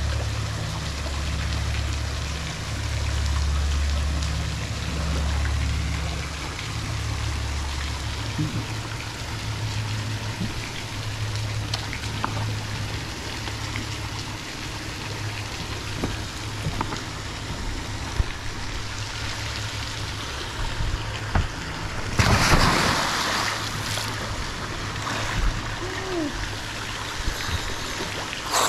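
Water sloshing and trickling, with a low rumble for the first several seconds, then a loud splash about 22 seconds in as a scuba diver in full gear makes a giant-stride entry into the water.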